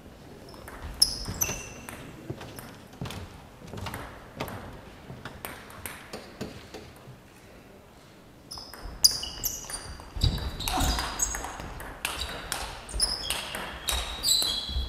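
Table tennis rally: the ball clicking off the bats and the table, with short high squeaks from the players' shoes on the hall floor. The hits come faster and louder from about eight seconds in.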